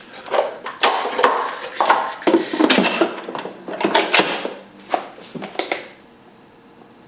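Cookware clattering: a run of knocks and scrapes of a pot and its lid being handled, stopping about a second before the end.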